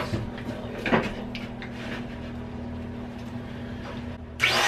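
A low steady hum with a knock about a second in, then near the end a benchtop electric power saw is switched on and its motor comes up loud.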